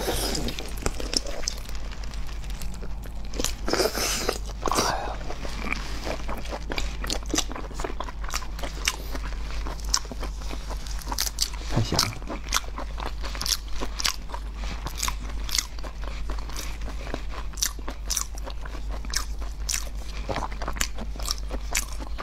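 Close-miked eating of raw marinated tiger prawns: wet biting, chewing, sucking and pulling at the prawn flesh and shell, a steady stream of sharp wet clicks and smacks.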